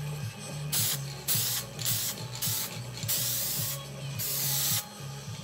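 Aerosol spray can of acid etch primer hissing in about six short sprays, the longest one a little past the middle, as primer is laid on bare metal.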